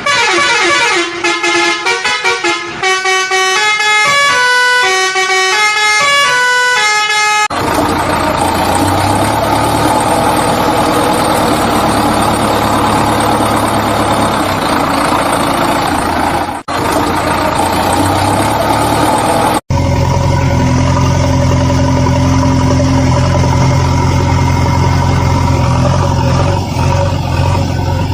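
A short tune of stepped notes, then a steady vehicle sound with a low engine hum and horn-like tones, which cuts off abruptly twice.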